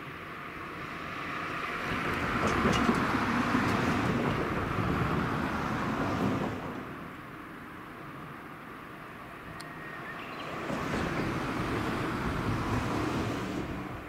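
Two vehicles passing one after the other on a nearby road, their tyre and engine noise swelling and fading away, the first about two seconds in and the second near the end. A few light clicks are heard between them.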